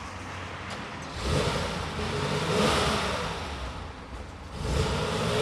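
1968 Porsche 911S air-cooled flat-six engine running and revving, with the revs rising about a second in and again near the end.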